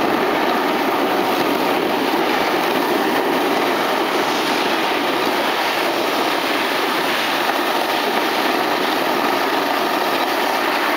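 Snowboards sliding and carving over packed snow: a steady scraping rush of the board edges on the piste, mixed with wind on the microphone.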